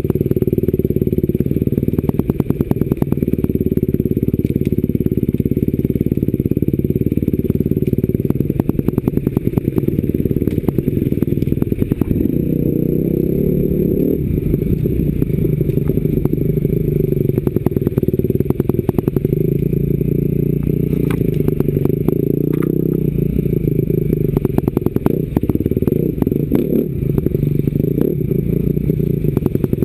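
Enduro dirt bike engine under way heard from the bike itself, muffled, its revs rising and falling as the throttle is worked over rough woodland track. Frequent short clatters and knocks from the bike going over the ground run through it.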